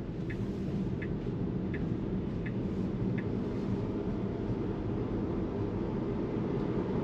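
Tyre and road noise inside the cabin of a Tesla electric car pulling away and speeding up, a steady hum that grows slightly louder. A faint tick sounds about every three-quarters of a second and stops about three seconds in.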